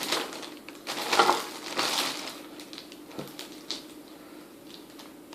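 Rustling and small knocks from items and packaging being handled while a parcel is unpacked, busiest in the first two seconds and sparser after, over a faint steady hum.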